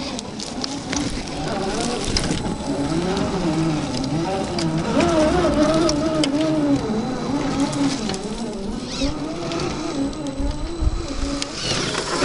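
Electric motors and gear drives of 1/10 scale RC crawlers whining, the pitch rising and falling as the throttle is worked on a climb, with crackling clicks from dirt and dry stalks under the tyres.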